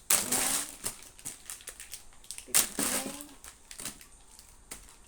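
Wrapped chocolates being handled and counted out one by one: plastic wrappers crinkling, with light clicks and taps as the pieces are moved.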